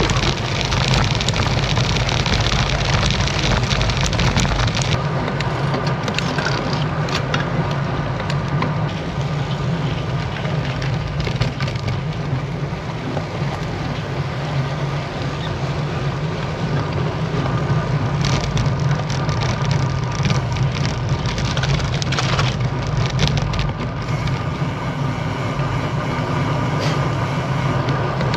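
Specialized Tarmac SL7 road bike rolling along at speed: steady wind noise and tyre rumble with frequent small rattling knocks, loudest in the first few seconds.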